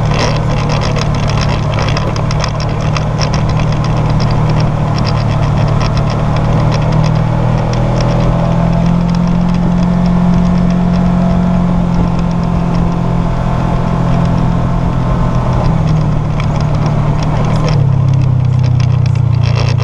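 Side-by-side UTV engine running steadily under way, with a fast light rattle over it. Its pitch rises a little through the middle and drops back about eighteen seconds in.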